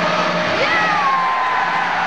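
Spectators' crowd noise over a steady hiss. Drawn-out shouts start about half a second in, one falling slowly in pitch until near the end.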